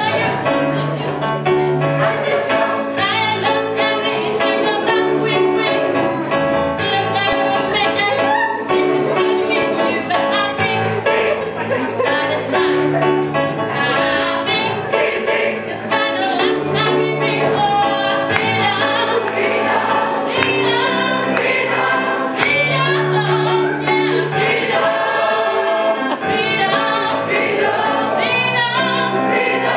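Mixed teenage choir singing together with an electric keyboard accompaniment, with steady low bass notes under the voices.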